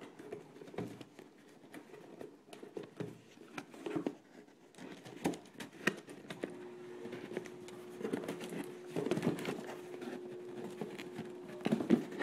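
Hands handling and tearing open a cardboard mailing box: irregular scrapes, taps and rustles of cardboard, with the loudest tearing and rustling near the end. A faint steady hum runs underneath.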